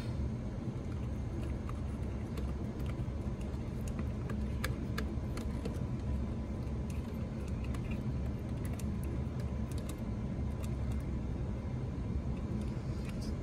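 Scattered small metallic clicks and taps as a starter motor's mounting bolt is worked in by hand, over a steady low hum.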